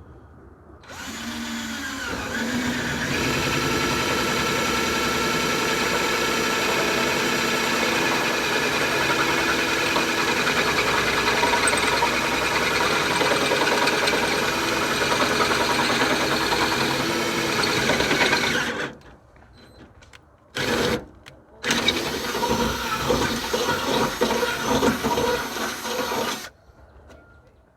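A motor spins up, rising in pitch over the first couple of seconds. It runs steadily for about sixteen seconds and cuts off suddenly, then runs twice more in shorter spells.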